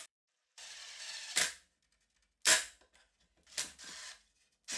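Cordless drill driving pocket-hole screws into a wooden drawer runner: a short run of just under a second, then several sharp clicks.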